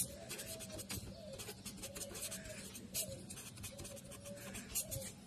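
Felt-tip marker writing on paper, a run of faint scratchy strokes.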